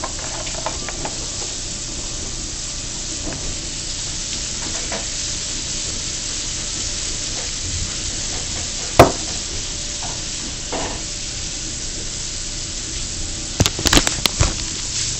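Steady hiss with scattered light clicks from hands handling a ceiling fan's removable light kit and its wires. One sharp knock about nine seconds in, and a quick run of clicks near the end.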